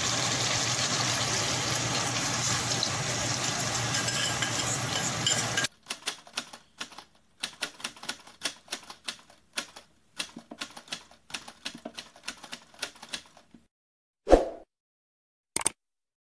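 Chicken and potatoes sizzling in a steel pot with a steady hiss that cuts off suddenly about six seconds in. Then a typewriter sound effect of rapid, irregular clicks, a short louder burst about two seconds before the end, and a single mouse-click sound effect near the end.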